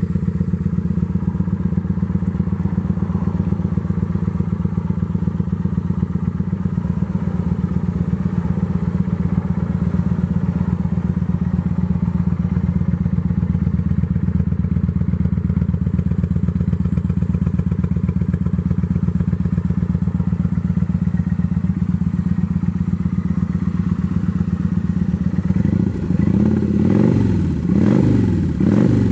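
2008 Kawasaki Vulcan 900's 903 cc V-twin idling steadily through its gutted stock exhaust, the mufflers with their baffles removed. Near the end the throttle is blipped a few times, the revs rising and falling quickly.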